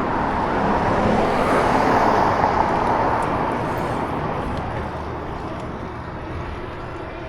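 Steady road and wind noise from a moving vehicle, swelling about two seconds in and then easing off.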